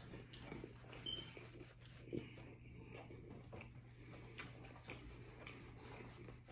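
Faint mouth sounds of someone chewing a mouthful of taco with the lips closed: soft scattered clicks, over a low steady hum.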